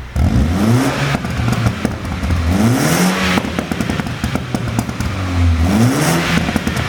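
Mini Cooper JCW (F56) 2.0-litre turbocharged four-cylinder revved in three quick blips, with a rapid run of exhaust pops and crackles as the revs drop after each one, from a pop-and-crackle engine tune.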